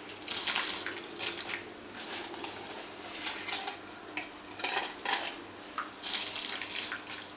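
Raw white rice dropped by the handful into a pot of simmering chicken stock, the grains pattering into the liquid and against the pan in a series of short noisy pours, several handfuls in turn.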